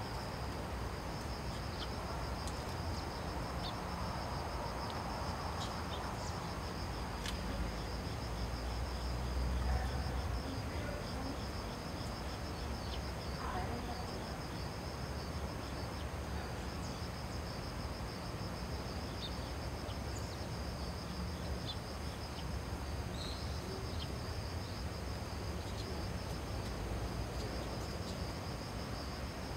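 A steady outdoor chorus of insects, a pulsing high-pitched trill that goes on without a break, over a low rumble that swells for a moment about nine seconds in.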